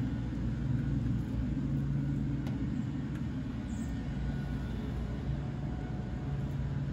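Steady low background rumble with a constant low hum under it, unchanging throughout, and a couple of faint light ticks.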